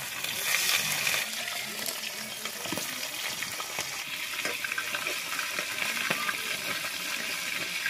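Pieces of rohu fish sizzling as they fry in hot oil in a steel kadai. The sizzle swells about half a second in as a piece goes into the oil, and a metal spatula gives a few light taps and scrapes against the pan as the pieces are turned.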